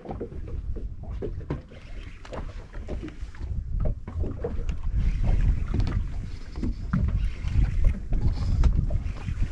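Wind buffeting the microphone on an open boat, a steady low rumble that grows stronger about halfway through, with water moving against the hull and scattered short knocks and clicks.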